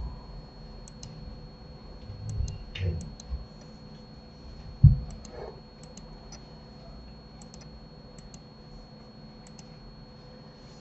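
Scattered clicks of a computer mouse and keyboard, many in quick pairs, with a few dull low thumps; the loudest thump comes about five seconds in.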